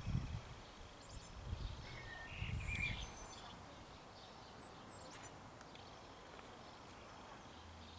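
Small birds chirping and singing in short phrases, with a few dull low thumps during the first three seconds.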